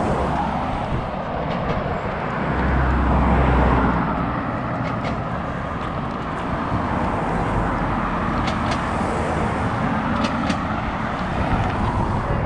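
Road traffic on a town street: cars driving past close by, the loudest pass swelling and fading about three seconds in.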